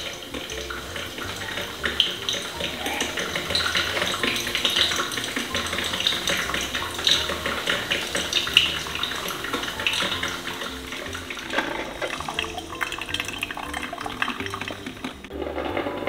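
Kenwood drip filter coffee maker heating plain water and pushing it through, with steady gurgling and sputtering as the hot water bubbles up and drips into the glass carafe, a first-use flush before brewing. Quiet background music plays underneath.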